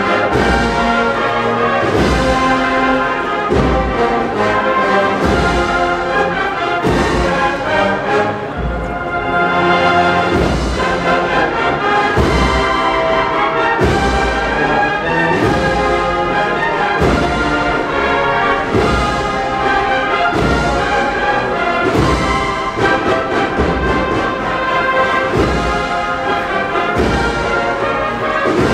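Brass band playing a Holy Week processional march: brass melody over a steady drum beat.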